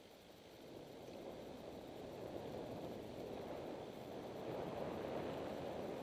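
Steady rushing of a river flowing below the road, growing gradually louder.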